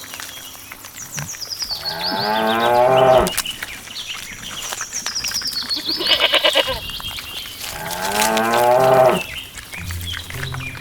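A cow mooing twice, two long calls about six seconds apart, with a shorter animal call between them and high falling chirps in the background.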